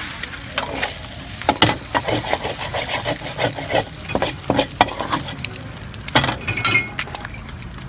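A metal spatula scraping and clacking in quick, irregular strokes across a hot flat griddle, over the sizzle of frying oil.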